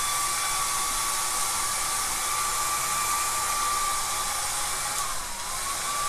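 Handheld hair dryer blowing steadily, a whining motor tone over the rush of air. Its pitch dips briefly about five seconds in, then comes back up.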